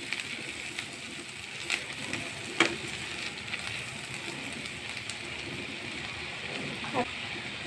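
Chopped onions frying in hot mustard oil in a frying pan, a steady sizzling hiss with a few sharp crackles, as a silicone spatula stirs them.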